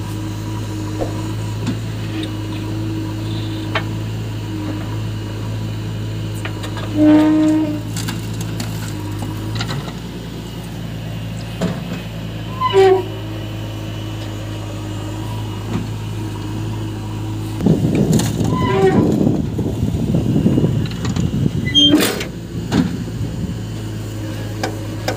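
Swaraj 744 FE tractor's diesel engine running steadily while hitched to a trolley loaded with soil. It turns louder and rougher for a few seconds about two-thirds of the way through, as under heavier load, with a few short sharp sounds over it.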